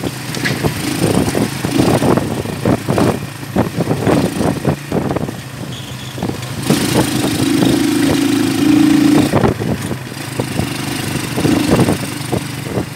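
A vehicle's engine running as it drives over a rough dirt road, with frequent knocks and rattles from the bumps. About seven seconds in, a louder steady engine drone holds for a couple of seconds.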